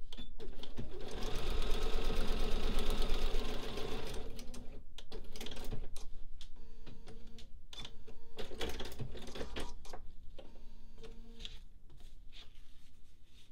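Bernina sewing machine stitching through fabric and foundation paper. A fast, even run of stitches for the first few seconds gives way to shorter stop-and-start runs that fade near the end.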